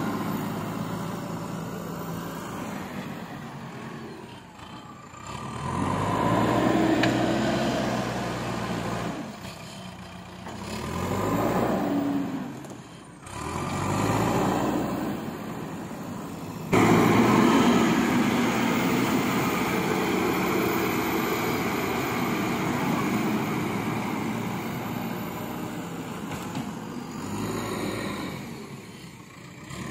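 JCB 3DX backhoe loader's four-cylinder diesel engine revving up and down several times as it works the front loader bucket. About halfway through it jumps suddenly louder and runs steadily.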